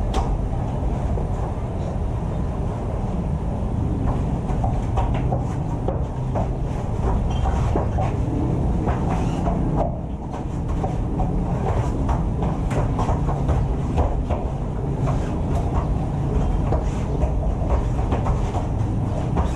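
Scattered thuds, slaps and scuffs of two people grappling on foam mats, heard over a steady low rumble.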